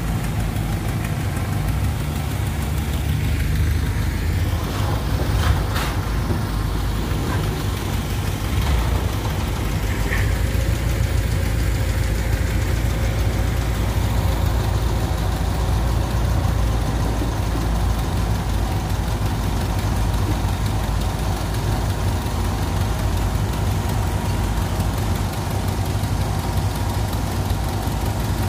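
Generator engine running steadily with a low, even hum. A single click about five and a half seconds in.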